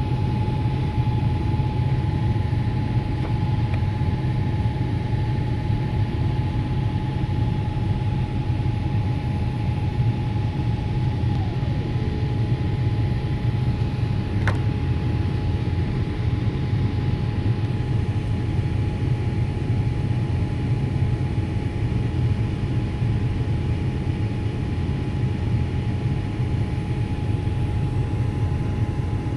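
Steady roar of a jet airliner's cabin on descent, heaviest in the low rumble, with a constant engine whine that glides down to a lower pitch about twelve seconds in. A single short click about halfway through.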